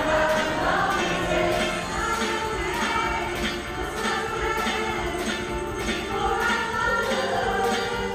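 Women's choir singing a pop song live, over a steady beat with jingling percussion.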